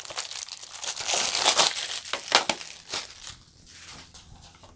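Clear plastic shrink wrap crinkling in quick, crackly bursts as it is peeled off a plastic Blu-ray case. The crinkling thins out near the end.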